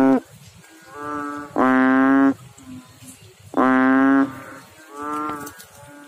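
Banded bullfrog (Kaloula pulchra) calling with its throat sac inflated: loud, low, moo-like calls under a second long, about two seconds apart. Fainter calls come in between.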